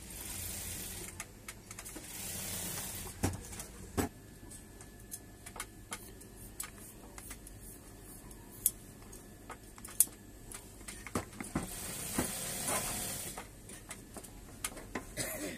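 Clicks and knocks of an old cast-metal grinding machine being handled and turned over in the hands, with three short stretches of hiss.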